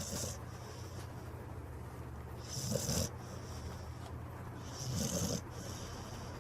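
A sleeping dog snoring, with a snore about every two and a half seconds, each one a low rasp with a hissing breath.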